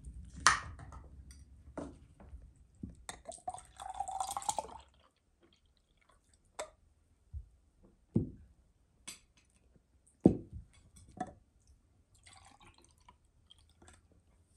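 Red drink poured from a glass jar into a drinking glass for a couple of seconds, among sharp clinks and knocks of glass and cutlery on the table.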